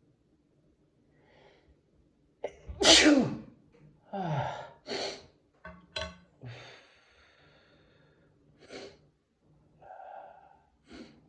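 A person sneezing: a quick in-breath, then one loud sneeze about three seconds in, followed by several shorter sneeze bursts and fainter breaths or sniffs.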